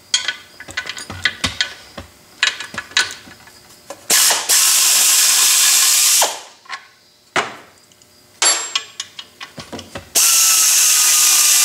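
Craftsman pneumatic air ratchet running in two bursts of about two seconds each, backing out the bolts that hold a lathe's cast-iron gear guard. Between the bursts come ratchet clicks and small metal knocks.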